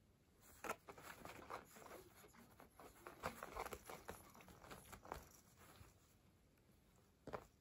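Cat pawing and pushing its head under a zabuton floor cushion, the fabric rustling and scratching over the tatami mat in a quick run of soft strokes. The strokes stop about five seconds in, and a single sharp tap comes near the end.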